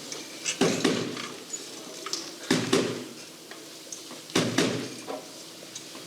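A choir's body percussion: pairs of stomps and claps repeating about every two seconds in a steady beat.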